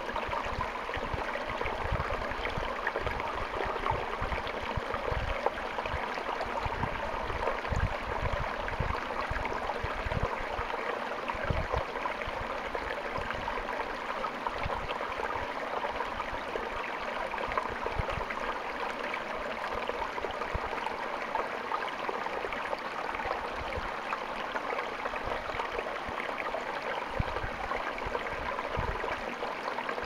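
Small mountain waterfall splashing down a rocky gorge: a steady rush of falling water, with irregular low thumps underneath.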